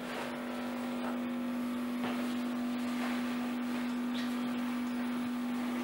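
A steady, even hum at one low-mid pitch, with faint room noise and a few soft ticks.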